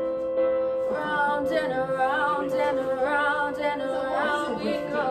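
A young woman singing solo over a backing track of sustained chords; her voice comes in about a second in, with vibrato on the held notes.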